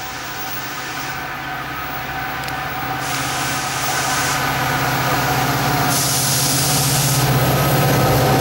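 Metra F40PH diesel locomotive approaching with a passenger train, its engine drone growing steadily louder as it nears.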